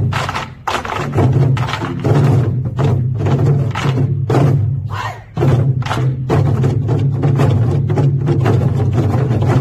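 Ensemble of Korean barrel drums (buk) struck with sticks in unison in a fast, driving rhythm, with sharp clacking stick hits among the booming drum heads. The drumming breaks off briefly twice, about half a second in and about five seconds in, then comes back in together.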